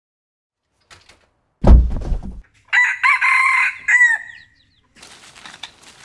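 A loud, deep thump, then a rooster crowing once, a wavering call of about two seconds that slides down at its end. Faint rustling footsteps on dry leaves come in near the end.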